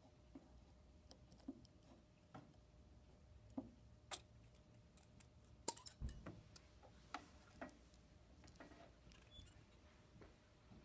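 Faint, scattered small clicks and taps from hands handling thin wires and a connector on a wooden block with metal posts, set up for soldering. The loudest tap comes a little before six seconds in.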